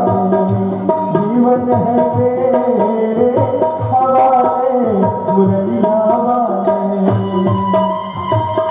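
Hindu devotional bhajan music: a gliding melody line over a steady tabla-style hand-drum beat, an instrumental passage between the sung lines.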